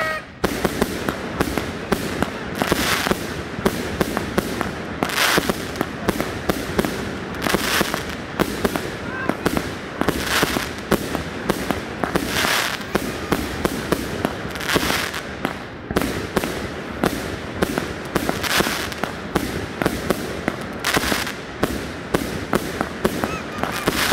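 Consumer aerial firework cake firing shot after shot, a louder boom about every two to three seconds with rapid crackling pops in between.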